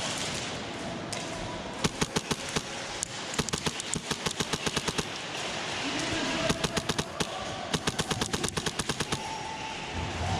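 Airsoft guns firing several rapid full-auto bursts of sharp clicking shots from about two seconds in until shortly before the end.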